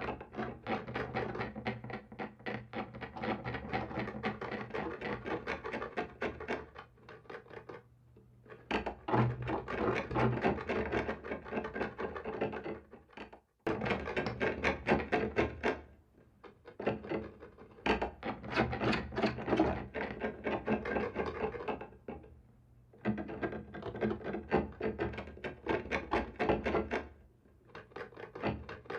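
Scratching on a wooden wall: rapid rasping scrapes in bursts of a few seconds, each broken off by a short pause, meant as a scary sound of something clawing at the wall.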